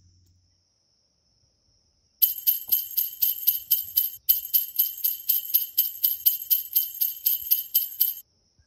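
Jingle bells shaken in a steady rhythm, about four shakes a second, starting about two seconds in and stopping shortly before the end, with a brief break near the middle.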